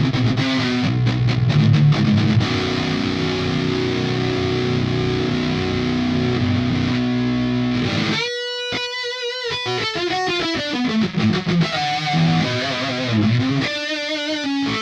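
Sterling JP70D seven-string electric guitar played through a Line 6 POD HD500 with distortion. It plays chunky rhythm chords that ring out into a held chord. About halfway through it switches to a single-note melodic lead line with wide vibrato and bends.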